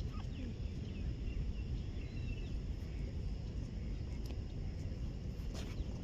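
Outdoor ambience: a steady low rumble with a few faint, short bird chirps.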